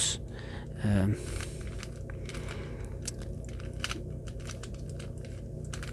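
Layers of a plastic Moyu GEO Cube, a 3x3 shape-mod twisty puzzle, being turned by hand: a quick, irregular run of light plastic clicks and clacks as the pieces snap round. A brief voice sound comes about a second in.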